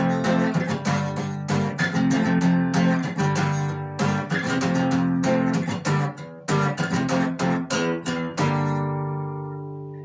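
Acoustic guitar strumming the closing bars of a song, ending on a final chord that rings out and fades away about eight and a half seconds in.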